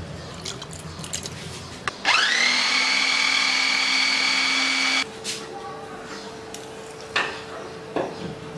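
Electric mini chopper blending a yogurt smoothie: the motor spins up with a quickly rising whine about two seconds in, runs at a steady high whine for about three seconds, then cuts off suddenly. Two short knocks follow near the end.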